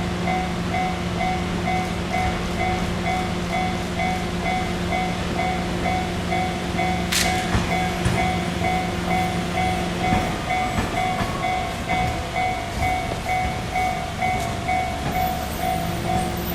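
Railway level-crossing warning bell ringing in a fast, even repeating beat, over the running of an E351 series electric train moving slowly past on a test run. A steady low hum from the train stops about ten seconds in and returns near the end, and there is one sharp click about seven seconds in.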